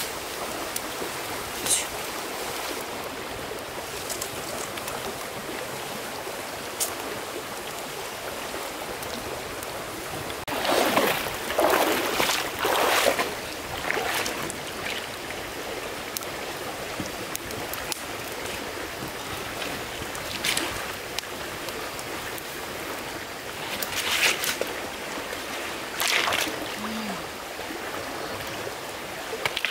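Steady rush of running water, with a few louder noisy bursts about a third of the way in and twice near the end, and scattered light clicks.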